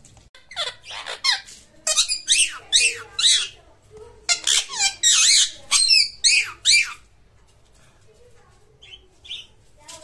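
Indian ringneck parakeet giving a rapid run of shrill calls, each sweeping sharply down in pitch, over the first seven seconds. It then falls mostly quiet, with a couple of faint short calls near the end.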